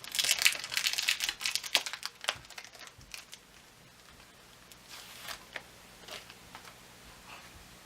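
Crinkling of a sticker bag and sticker sheets being handled. It is busy for the first two seconds or so, then thins to a few scattered rustles.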